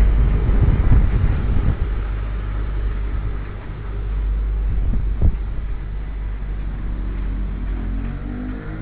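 Low rumbling street traffic noise, loudest at the start and easing off, with a sharp knock about five seconds in. Near the end an approaching truck's engine rises.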